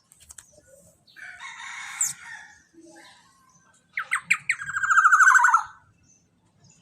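Young black-naped oriole calling: a harsh, raspy call about a second in, then a few sharp notes running into a fast, rattling series of repeated notes lasting nearly two seconds.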